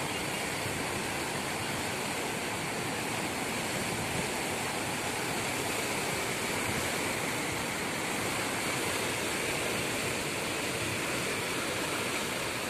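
River in flood, muddy water rushing over a weir and churning downstream: a steady, unbroken rush of water.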